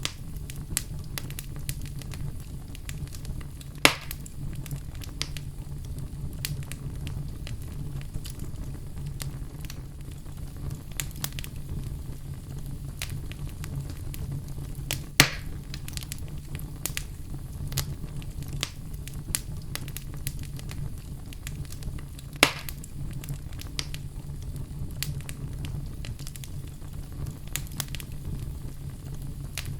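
Wood fire crackling in a fireplace: a steady low rumble with frequent small pops, and three louder sharp snaps spread through.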